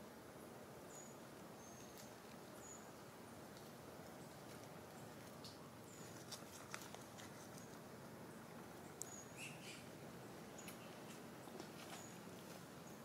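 Quiet outdoor ambience: a steady faint hiss with short high-pitched chirps repeating about once a second. A few light clicks and rustles in dry leaf litter come in from about halfway, where the macaques move about.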